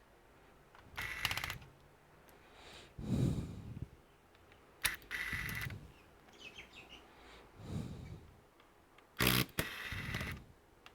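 Small clicks, rattles and dull knocks from hand tools, screws and plastic parts being handled while a laptop is taken apart, with quick runs of fine clicking and a sharper click near the end.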